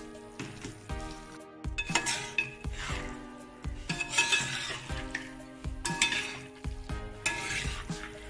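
Flat metal spatula stirring and scraping thick chicken and raw-banana curry against a metal pot, in strokes about every two seconds, with sharp clinks of metal on metal and a sizzle from the pot.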